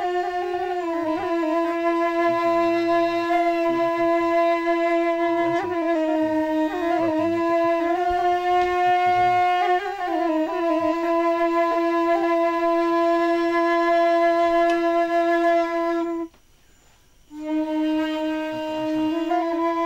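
A slow melody on a flute-like wind instrument, long held notes with a reedy edge changing pitch every few seconds, with a brief break about sixteen seconds in.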